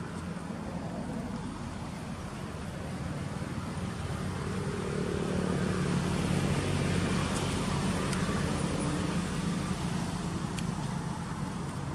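A motor vehicle's engine running, with a steady hum that grows louder toward the middle and then eases off over a background of traffic noise.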